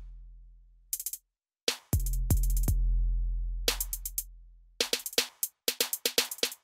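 Electronic background music built on a drum machine: long, deep bass notes that slowly fade, with sharp clicking percussion over them, and a brief silence about a second in.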